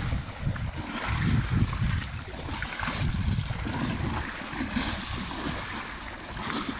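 Horses wading through shallow sea water, their legs splashing and sloshing, with uneven gusts of wind buffeting the microphone.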